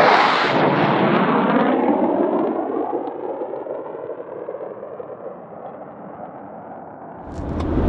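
Military fighter jet flying low directly overhead: a loud jet roar that peaks right at the start, then fades away over several seconds with falling, sweeping tones. About seven seconds in, a vehicle's low engine rumble takes over.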